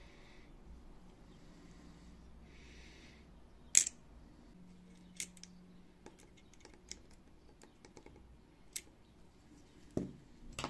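Small metal clicks and ticks of steel tweezers working against the platter and head arm of an opened laptop hard drive, with one sharp click about four seconds in and a duller knock near the end.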